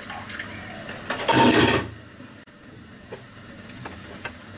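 Water poured from a bowl into a pan of curry, a short splashing rush about a second and a half in, followed by a few faint clicks.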